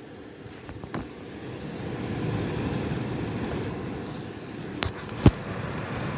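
Heller fan heater running on its first setting: steady fan and airflow noise that builds up over the first couple of seconds as the fan comes up to speed. A few light clicks, and one sharp click about five seconds in.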